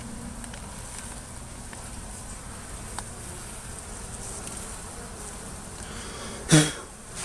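Honeybees buzzing in a steady hum around a colony that is being cut open, with a few faint ticks. About six and a half seconds in, one brief, much louder sound falls in pitch.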